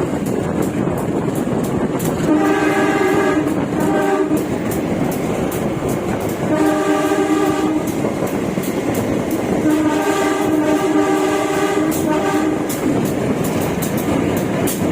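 Locomotive horn sounding four warning blasts for level crossings: a blast, a short one, another, then a long one lasting about three seconds near the end. Underneath, the train runs on with steady rumble and wheels clicking over the rail joints, heard from inside the train.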